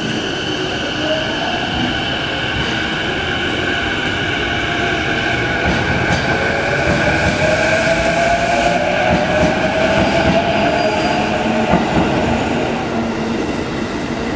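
Chuo Line E233-series electric train pulling out of the station: its traction motors give a steady whine with a tone that rises in pitch as the train gathers speed, over the rumble of the wheels on the track.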